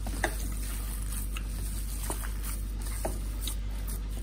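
Fingers squishing and pinching a moist mashed-potato mixture in a bowl: soft, wet clicks about once a second over a steady low hum.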